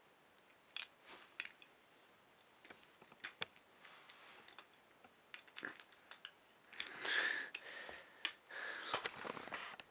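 Light scattered clicks and handling noise from a wooden toy train being handled, with denser rustling about seven seconds in and again near the end.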